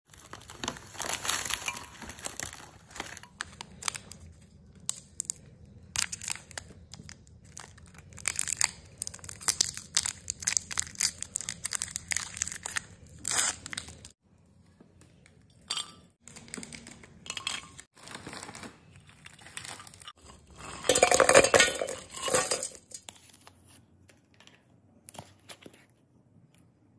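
Plastic candy wrappers crinkling and tearing in bursts of sharp crackles as wafer rolls are unwrapped by hand, with quieter gaps in the second half and the loudest stretch of crinkling about 21 seconds in.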